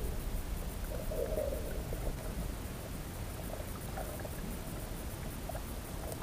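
Muffled underwater rumble picked up by a camera held underwater, with faint scattered clicks and a brief warbling patch about a second in.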